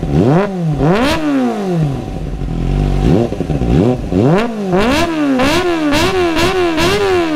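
Kawasaki ZX-25R's 250 cc inline-four engine revving hard through an IXIL aftermarket exhaust with the dB killer removed, which makes it louder. The engine pitch climbs and drops again and again, with a quick run of about six rev rises in the second half, then winds down near the end.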